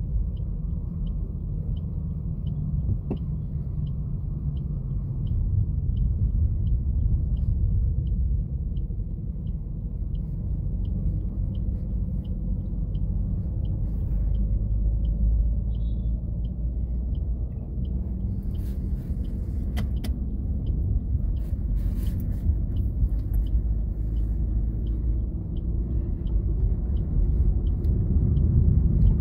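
Low rumble of a car's engine and tyres on the road, heard from inside the moving car, with a faint, evenly spaced ticking about one and a half times a second.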